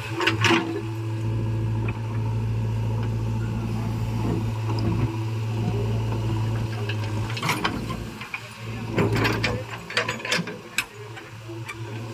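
Heavy diesel engine running with a steady low hum. Several sharp clanks and knocks of metal come in the second half.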